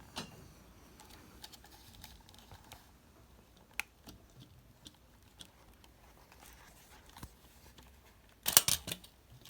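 Quiet workshop handling sounds as a moped's headlight and speedometer unit is taken apart: scattered faint clicks, one sharp click about four seconds in, and a louder brief clatter of parts near the end.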